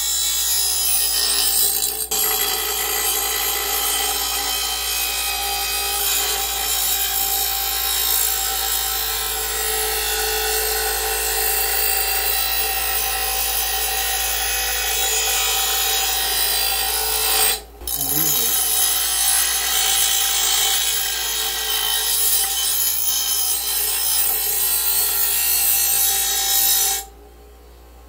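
Porter-Cable bench grinder wheel grinding the edge of a dull steel lawn mower blade: a harsh, continuous grinding. It breaks off briefly about two-thirds of the way through as the blade is lifted away. Near the end the grinding stops and only the grinder's motor is left running, much quieter.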